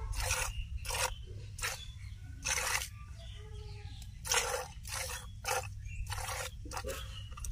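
Cow being milked by hand into a plastic bucket: short hissing squirts of milk into the pail, about nine of them, roughly one every half second to a second, with a pause of over a second a little before the middle.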